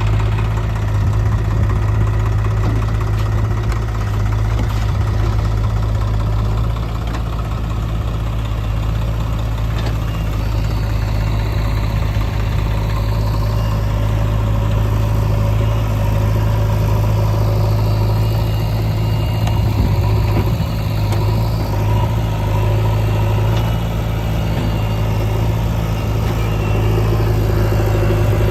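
Diesel engine of a JCB 3DX backhoe loader running steadily with a deep hum, rising and falling slightly in loudness as the machine works.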